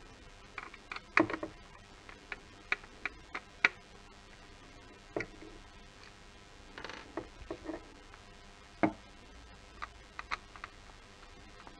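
Irregular clicks and light knocks of hard plastic and metal parts being handled: a Mercedes W212 steering-wheel trim with its shift-paddle modules being turned over and worked with a screwdriver on a wooden tabletop.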